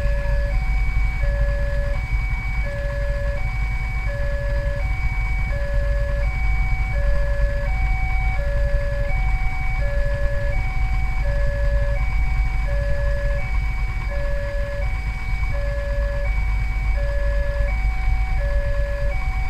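Railway level-crossing warning bell sounding a repeating electronic ding, about three tones every two seconds, warning that a train is approaching. A steady low rumble of waiting traffic runs underneath.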